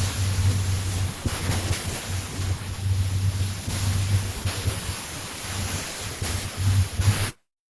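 Wind buffeting the microphone in uneven gusts over a steady rushing hiss. It cuts off suddenly near the end.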